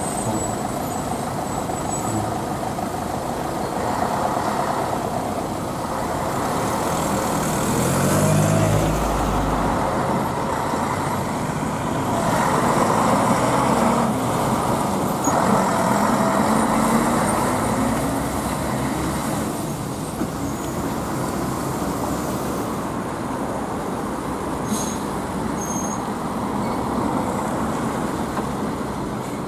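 Ikarus buses' diesel engines running as the buses pull through the station, the engine note rising and falling as they accelerate, over steady traffic noise.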